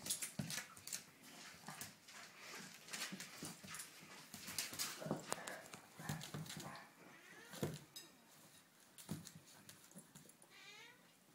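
Small dog scrabbling on a tile floor as it paws at a spider: its claws click and scrape on the tiles in short irregular bursts, with a brief whine near the end.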